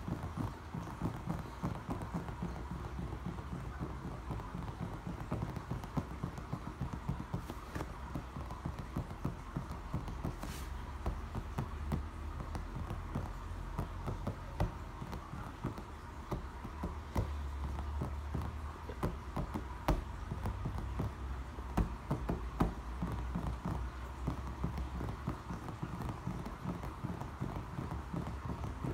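Fingertips and nails tapping quickly and irregularly on a pool brick: a dense, continuous run of light taps.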